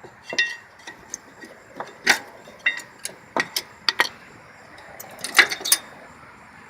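Sharp metallic clicks and clinks, about a dozen at irregular intervals, the loudest a little past the middle: old rear brake pads being pried out of the caliper bracket with a screwdriver and handled.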